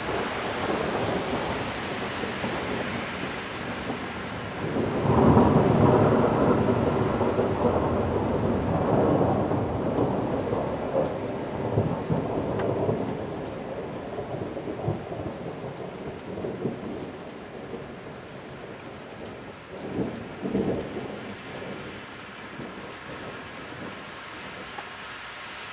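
Thunder rumbling over steady rain: a loud roll swells about five seconds in and slowly dies away over the next several seconds, with a shorter rumble near the end.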